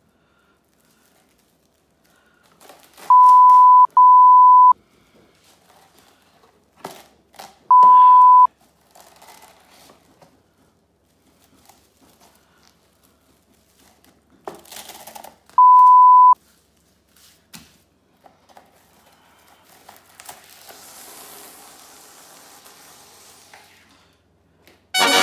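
Plastic cling wrap crinkling and tearing as it is pulled off the roll and smoothed over a stone countertop, with a soft steady hiss of film sliding near the end. Cutting across it four times is a loud steady bleep tone: twice back to back about three seconds in, then about eight and sixteen seconds in.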